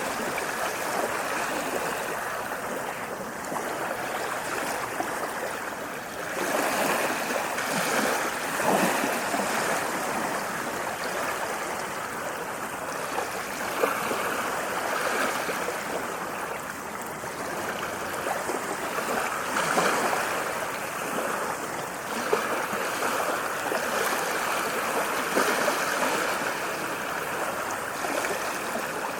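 Moving water rushing and splashing steadily, swelling louder now and then, with a few small sharp splashes.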